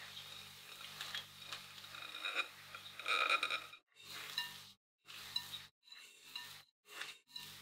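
A spatula folding and stirring sponge-cake batter in a glass bowl: wet stirring with the spatula scraping the glass. It is loudest a little before the middle, then breaks into short separate strokes.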